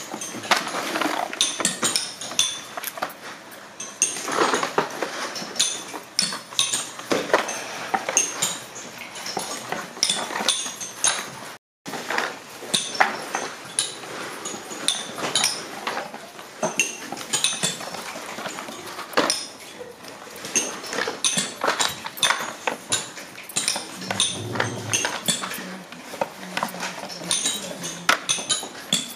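Stiff paper firework tubes clicking and knocking together as they are handled and packed, a dense, irregular patter of small taps. The sound cuts out for a moment near the middle.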